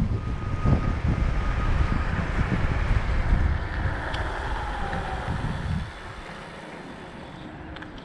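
Wind buffeting the microphone and road rumble while riding a Kaabo Wolf Warrior X Pro+ electric scooter; the loud low rumble drops off sharply about six seconds in. A faint steady high tone fades out about two seconds in.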